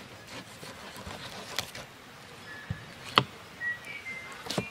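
Filleting knife working a fish on a plastic cutting board: a few scattered clicks and taps, the loudest about three seconds in. Short high chirps sound in the background in the second half.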